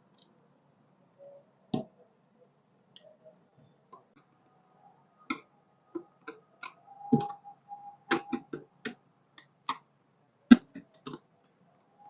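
Irregular clicks and light knocks of a screwdriver and screws as a blender's housing is screwed back together, about a dozen ticks with uneven gaps, the sharpest about ten and a half seconds in.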